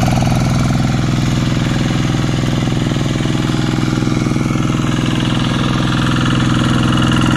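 Kubota TL 800 hand tractor's single-cylinder diesel engine running at a steady pace while the tractor plows wet paddy mud, growing slightly louder toward the end.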